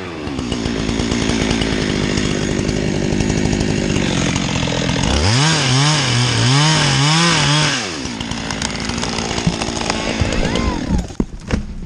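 Two-stroke chainsaw running just off full throttle, revved up and down about four times in quick succession partway through, then settling lower. A few sharp knocks near the end.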